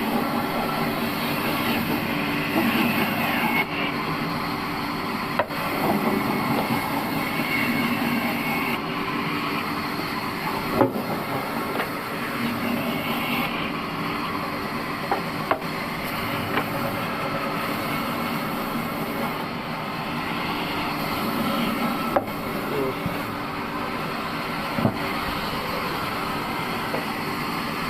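An old band sawmill running with a steady mechanical hum, with a few sharp knocks scattered through it.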